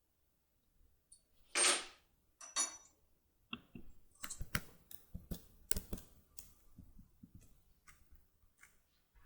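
Small metal clicks and taps as a Securemme K75 lockpick and lock cylinder are handled and worked, with two brief scraping rustles near the start.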